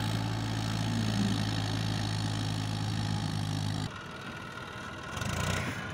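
Tractor diesel engine running steadily. About four seconds in it drops abruptly to a quieter engine hum.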